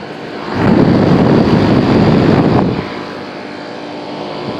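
Carrier central air conditioner condenser running, its compressor and fan giving a steady hum that sounds strained, which the owner takes for a compressor having a hard time. About half a second in, a loud rush of air over the microphone covers it for about two seconds, then cuts off.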